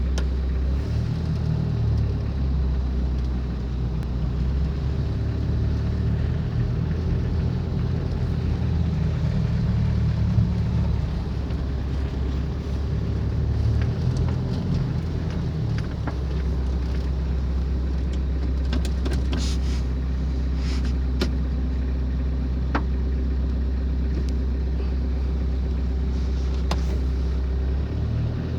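Mitsubishi L300 Delica 4x4 drivetrain running with its manual transmission making a weird noise: a steady low drone with a constant thin whine above it. A few faint clicks come through in the second half.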